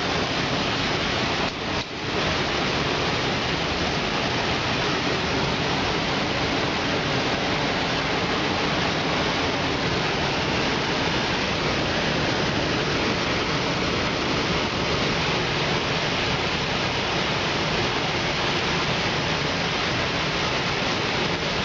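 Power sander running steadily on the fender's filler or primer, with a brief dip about two seconds in.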